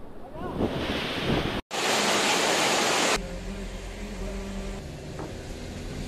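Floodwater rushing and splashing around a car as it drives through a flooded road, a loud hiss that starts after a brief dropout and cuts off sharply about three seconds in. Then the car's steady low hum, heard from inside the cabin.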